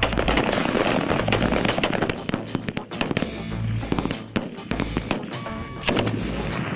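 Rifle fire from several shooters on a range: many sharp shots, irregularly spaced and often overlapping, over background music.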